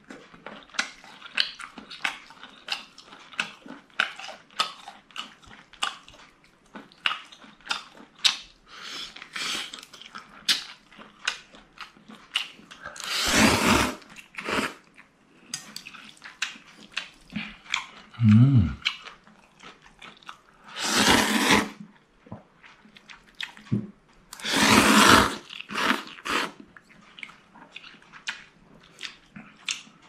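Close-up eating sounds: wet chewing and lip smacks throughout, with three long, loud slurps about 13, 21 and 25 seconds in.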